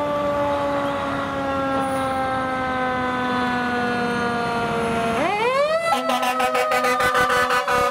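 Fire engine siren on a 2017 Pierce Enforcer pumper, its pitch sliding slowly downward, then sweeping sharply back up about five seconds in. A fast pulsing siren sound then runs over the steady tone.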